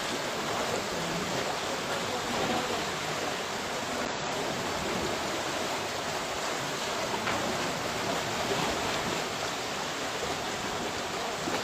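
Fast-flowing floodwater rushing: a steady, even noise of water that holds at one level throughout.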